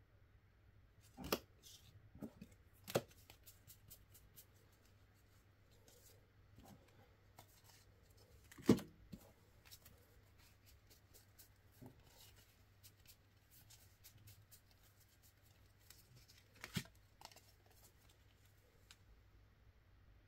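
UNO playing cards being handled by hand: scattered light clicks and taps as cards are picked up and laid down, with a few louder knocks spread through.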